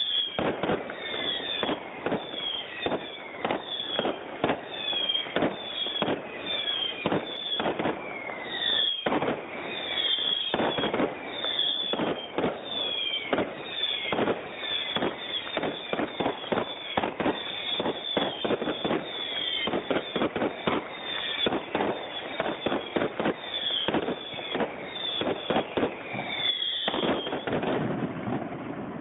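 Aerial fireworks going off in a rapid barrage of bangs, two or three a second, mixed with short whistles that fall in pitch, fading out near the end.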